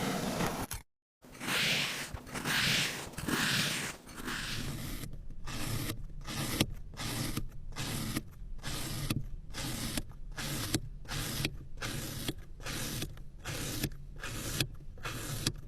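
Rubbing and scraping sounds in three longer strokes, then from about five seconds in a steady run of short strokes, a little more than one a second.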